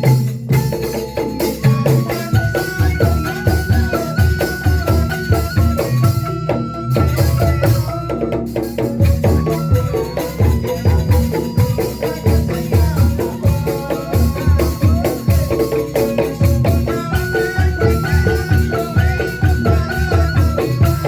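Instrumental music with a busy, steady percussion beat of drum strokes and rattling, under a melody line that steps between held notes.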